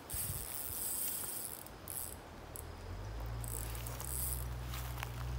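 Insects trilling in high-pitched bursts that start and stop every second or so from the pond-side vegetation. A low steady hum comes in about halfway through.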